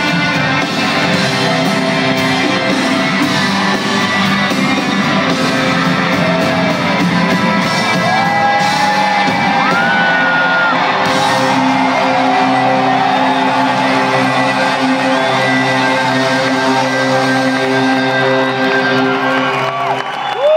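Live rock band with a male singer playing in a large hall, recorded on a phone from the audience. The bass and drums drop out just before the end.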